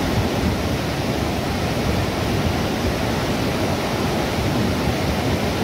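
Loud, steady roar of a swollen, muddy river in spate, with no separate crashes standing out.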